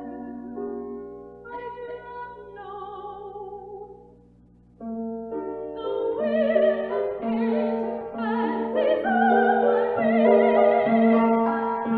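Classical art song: a female voice sings held notes with a wide vibrato, accompanied by piano. About four seconds in there is a short pause. Then the piano comes in with evenly repeated chords and the voice returns louder.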